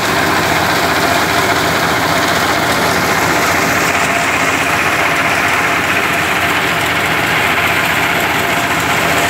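Small diesel engine running steadily while it drives a drum paddy thresher. Bundles of rice stalks are being fed into the spinning drum, and the threshing of straw and grain adds a dense, even noise over the engine's beat.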